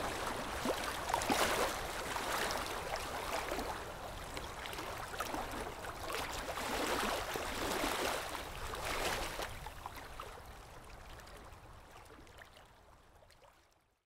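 Rushing water, swelling and ebbing every second or two, fading gradually away toward the end.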